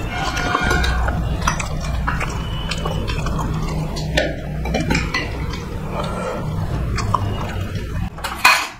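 Close-miked eating sounds: chewing and scattered sharp clicks of a spoon ladling curry onto rice, over a steady low hum. A brief loud rush of noise comes near the end.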